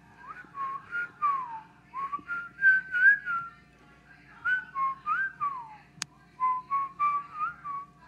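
A whistled tune of short, clear notes that glide up and down, played as a rhythmic melody.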